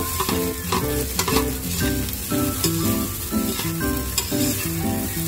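Slotted metal spatula scraping and stirring fried rice in an aluminium wok, with the rice sizzling as it fries. Background music with a stepping melody plays underneath.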